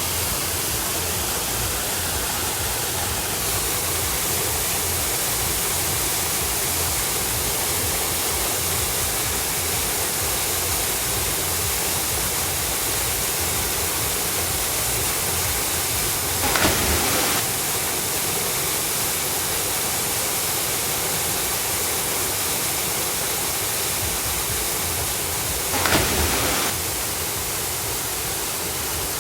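Waterfall rushing steadily. The sound is interrupted twice by a brief louder burst, about two-thirds of the way through and again near the end.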